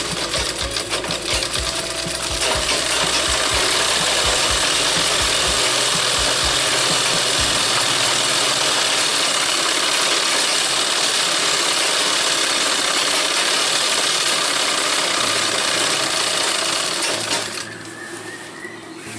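Sewing machine stitching fabric: a couple of seconds of separate clicking stitches, then running fast and steady for about fifteen seconds, stopping shortly before the end.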